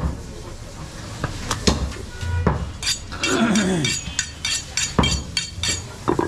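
A butcher's knife being honed on a sharpening steel: a quick run of sharp, ringing metallic strokes, about three to four a second, through the second half. A few scattered knocks come before it.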